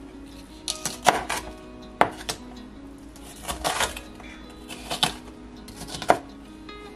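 Kitchen utensils knocking and scraping on a board or dish: about eight sharp, irregularly spaced knocks, with a couple of longer scraping strokes.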